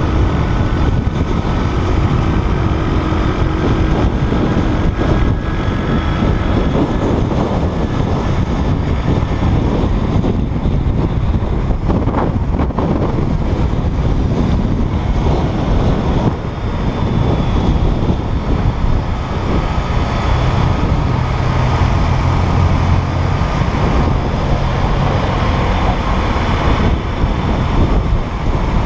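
Road noise heard while riding a motorbike through dense traffic: a steady mix of engine noise, tyre noise and passing cars and motorbikes, with wind buffeting the microphone.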